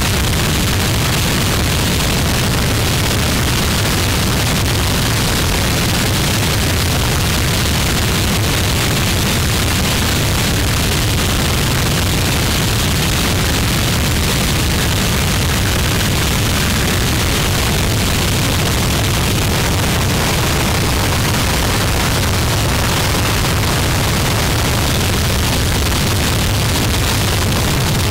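Harsh noise recording: a dense, unbroken wall of distorted static at a constant loud level, a low rumble under a bright hiss, with no pauses or changes.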